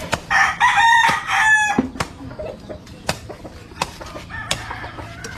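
A rooster crows once near the start, one crow of about a second and a half broken into three parts. Scattered sharp knocks sound throughout.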